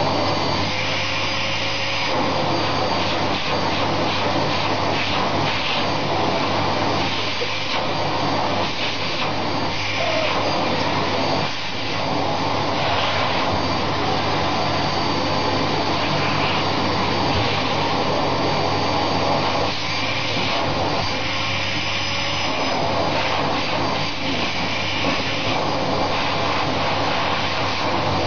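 Vacuum cleaner running steadily, its hose nozzle drawn over a cat's fur, with a constant hum under the suction noise. The sound shifts a little now and then as the nozzle moves.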